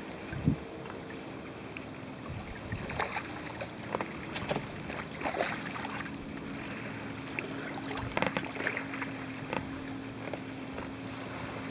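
Water lapping and small splashes around a float tube, with irregular clicks and knocks from the angler's rod and reel. A faint steady hum runs underneath.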